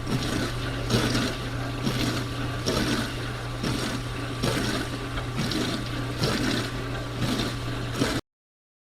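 Dishwasher running its wash cycle: a steady circulation-pump hum under water spray that surges in a swish about once a second, as from a rotating spray arm. The sound cuts off suddenly near the end.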